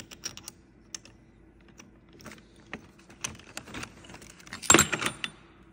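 Small metal parts being handled: a thin shim being fitted over the stud of a propeller pitch block, giving scattered light clicks and clinks, with a louder cluster of clinks near the end.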